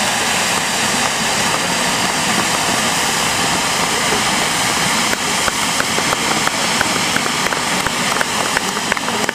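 Fireworks fountains (gerbs) hissing steadily as they spray sparks. From about halfway through, a string of short sharp ticks, roughly three a second, joins the hiss.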